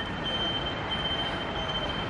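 Fire engine running as it pulls out of the station bay, a steady rumble of vehicle noise with a thin, steady high-pitched tone over it.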